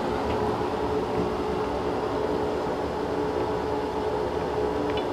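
Ceiling exhaust fan running steadily: an even rush of air with a steady hum.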